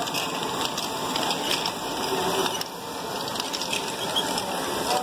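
LEGO Great Ball Contraption modules running: a steady whirr of many small plastic gears and motors, full of quick clicks and rattles as the small plastic balls are passed along the machines.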